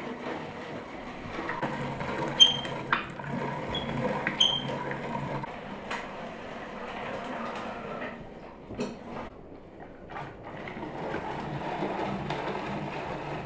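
Hand-cranked rotary drum grater grinding roasted hazelnuts: a steady rasping, churning grind with occasional sharp ticks and a few short, high squeaks in the first few seconds.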